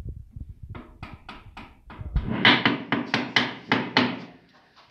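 Cordless drill's keyless chuck being hand-tightened on a bit: a quick run of sharp ratcheting clicks, about four a second, louder in the second half.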